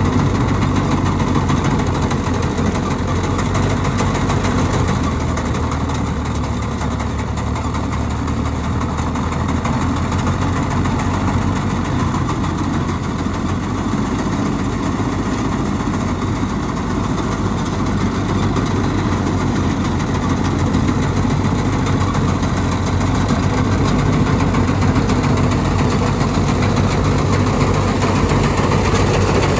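Mahindra Arjun Novo 605 DI tractor's diesel engine running steadily while driving a Gahir Nippy45 mini combine harvester attachment as it cuts rice, a continuous drone with mechanical clatter. It grows a little louder toward the end as the machine comes close.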